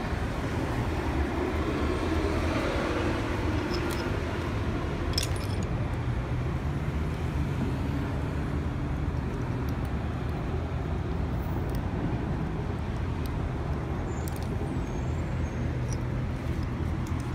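Steady low rumble of idling engines and traffic, with a few light clicks.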